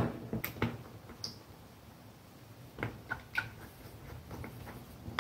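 Light clicks and taps of a plug-in relay, its socket and hook-up wires being handled during wiring: a couple just after the start and a few more around three seconds in.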